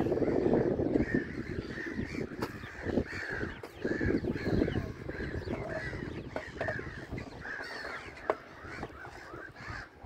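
A flock of gulls calling: many short, harsh calls repeating and overlapping. Under them is a low rumble, loudest in the first second and again around three to four seconds in.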